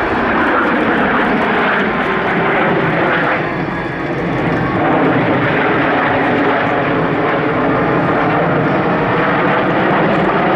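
Fixed-wing aircraft engine running loud and steady as the plane flies by, its pitch shifting slightly about four seconds in.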